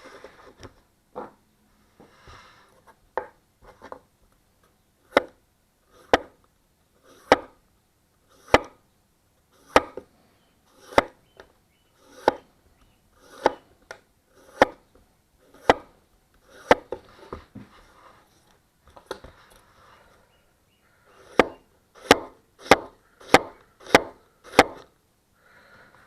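Gyuto chef knife chopping through food onto a cutting board: a steady series of sharp knocks, about one a second, each led by a brief slicing sound. Near the end the strokes come quicker, about two a second.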